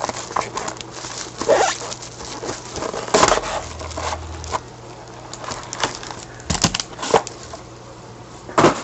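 Packaging of a sealed trading-card box being handled and opened: irregular crinkling, rustling and sharp clicks of plastic wrap and cardboard.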